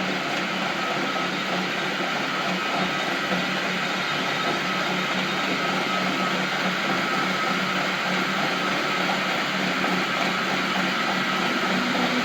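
Metal-turning lathe running steadily through a cut, with a constant high whine over a low machine hum.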